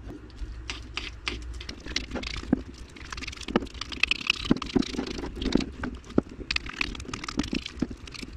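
A spoon clinks and taps irregularly against a ceramic bowl as hard-boiled eggs are mashed and stirred with mayonnaise, making many quick clicks throughout.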